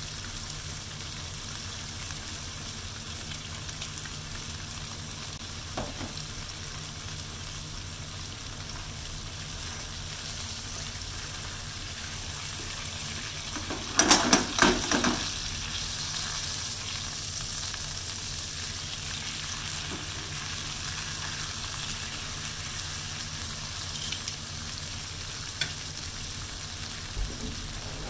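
Beef steak and minced garlic sizzling steadily in hot oil in a frying pan. About halfway through, tongs moving the steak bring a brief, louder flare of sizzling with clicks of the tongs against the pan.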